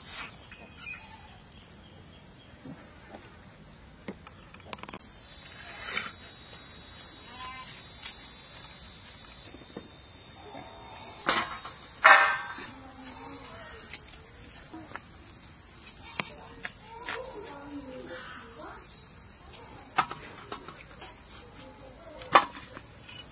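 A chorus of insects shrilling in one steady high-pitched drone, which starts abruptly about five seconds in. Now and then a sharp click or knock sounds, the loudest a little past the middle.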